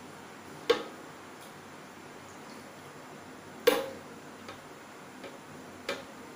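Kitchen tongs knocking against the rim of a plastic mixer-grinder jar as blanched spinach is dropped in: two sharp clicks about three seconds apart, then a few fainter taps.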